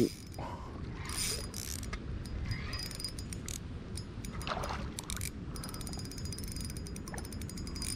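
Spinning reel clicking in quick ratchet-like runs, the longest a fast, even train of clicks through the last couple of seconds, over a steady low rumble of wind or water noise.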